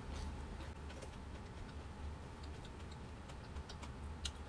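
Close-up eating sounds: small scattered clicks of chewing and of fingers picking food from a foil tray, over a steady low hum.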